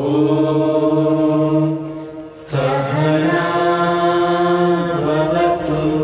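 A group of men and women chanting together in unison, two long held notes with a short break about two and a half seconds in.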